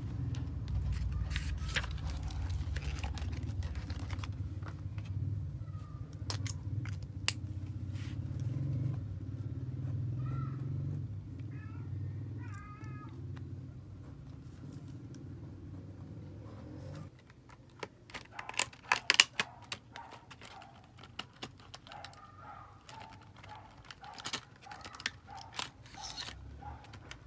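A cat meowing a few short times near the middle, over a steady low hum that stops about two-thirds through. Throughout there are taps and clicks of pens, paper and a plastic pen case being handled on a desk, the loudest being a cluster of sharp clicks about two-thirds through.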